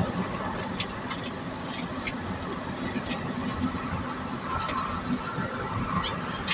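Vehicle driving noise: a steady rumble of engine, tyres and wind, with a scattering of short clicks.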